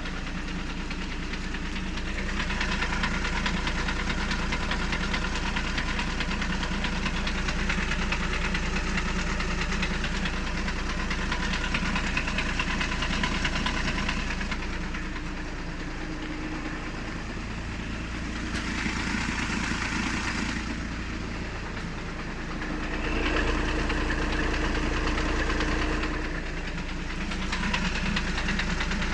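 Volkswagen Passat B7's 2.0 TDI (CFFB) four-cylinder common-rail diesel running with a knock (стук). The engine sound shifts in tone a few times.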